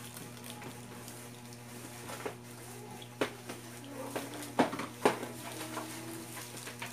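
Close-up eating sounds: a person biting and chewing a steamed siopao bun, with a few short sharp mouth smacks and clicks, the loudest two just past the middle, over a steady low hum.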